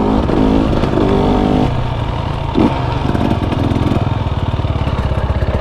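KTM 300 EXC two-stroke dirt bike engine running under the rider, settling about two seconds in into a low, rapid, even putter at low revs.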